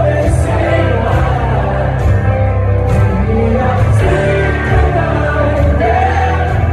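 Live rock band playing loud, with acoustic and electric guitars, bass and drums keeping a steady beat under a sung vocal, heard from within the audience.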